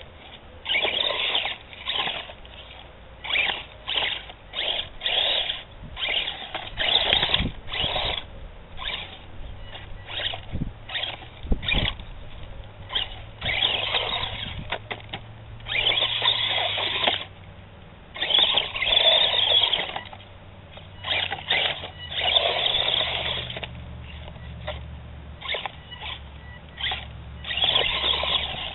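HPI Mini Recon RC truck's electric motor and drivetrain whining in short throttle bursts, starting and stopping many times as it crawls over loose dirt and rocks.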